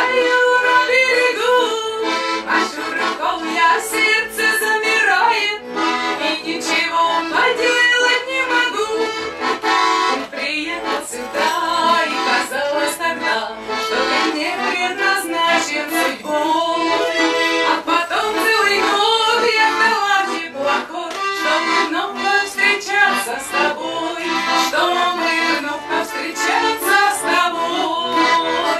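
Russian garmon (button accordion) playing a folk song, with a woman's singing voice over the accordion.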